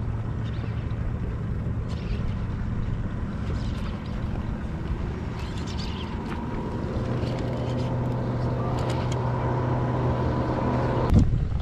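Boat motor running with a steady hum that grows slightly stronger over the last few seconds and cuts off near the end.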